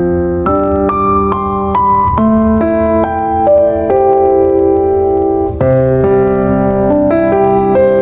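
Background music: electric piano playing slow chords and a melody over a steady low bass.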